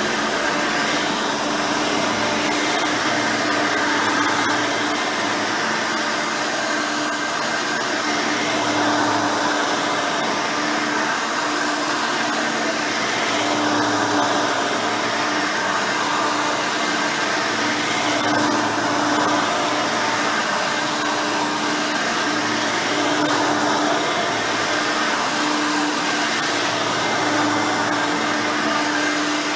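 Hoover Elite 5.0 upright vacuum cleaner running steadily on its rebuilt original 5-amp motor with a 7-blade fan, its brush roll turning. The sound is a steady hum that swells slightly and eases back every couple of seconds.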